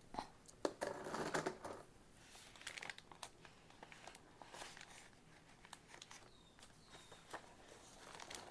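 Sheets of paper rustling and crinkling as they are handled, with light clicks and taps scattered through.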